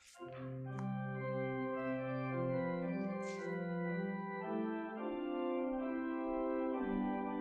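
Organ playing slow held chords, the notes changing every second or so, after a brief gap right at the start.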